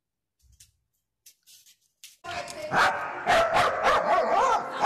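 Near silence for about two seconds, then a dog barking over and over.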